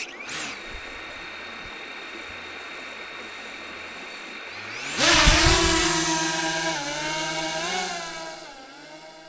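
Small quadcopter drone's motors spinning up to a steady idle whine, then throttling up sharply about five seconds in to take off, the whine wavering in pitch as it flies and fading as it climbs away.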